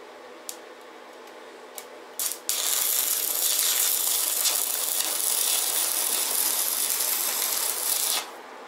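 Electric arc welding on a steel frame tube: after a few short clicks, the arc strikes about two and a half seconds in and runs with a steady loud crackling hiss, then stops abruptly near the end.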